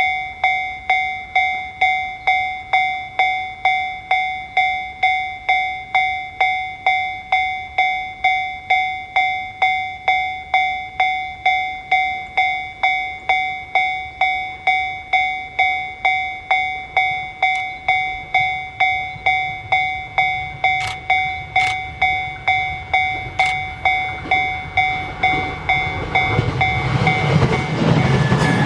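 Japanese railway level crossing warning bell ringing steadily, about one and a half strikes a second. In the last few seconds the rumble of the approaching JR East E657 series limited express grows loud underneath it.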